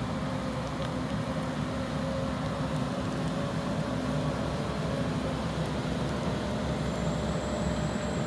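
Caterpillar MH3022 wheeled material handler's diesel engine idling, a steady low hum. A faint high whine joins near the end.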